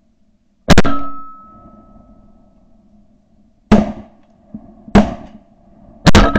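Shotgun shots fired at flying ducks: one a little under a second in, single shots near four and five seconds, and a quick pair near the end. The first shot and the last pair leave a brief ringing tone.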